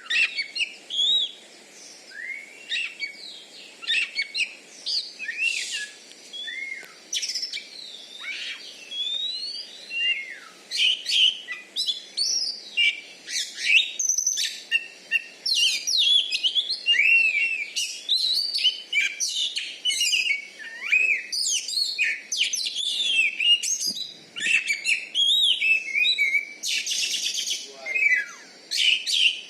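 Oriental magpie-robin (kacer) in full competition song: a rapid, unbroken run of varied whistles, slurred glides and chattering phrases, with a harsh rasping note about six seconds in and another near the end.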